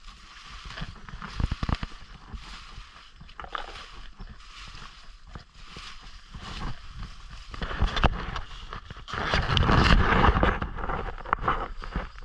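Tall grass and leafy scrub rustling and swishing against the body and camera while walking through dense undergrowth, with footsteps. It comes in uneven swells and is loudest from about eight to eleven seconds in.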